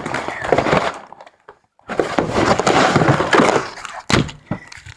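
Close crackling and crinkling of slime and its plastic container being handled, in two stretches with a brief pause about a second in, and a sharp click about four seconds in.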